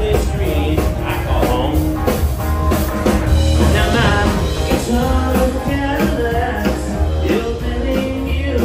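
Live rock-and-roll band playing, loud and steady, with a singer over a full band and drum kit.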